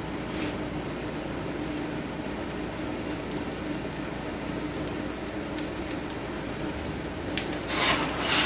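Chickpea omelette batter sizzling in a frying pan: a steady hiss with faint crackles over a low hum. A louder, brief noise comes near the end.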